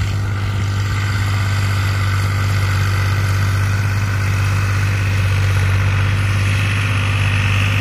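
Fiat 480 tractor's three-cylinder diesel engine running steadily under load while pulling a plough through dry soil.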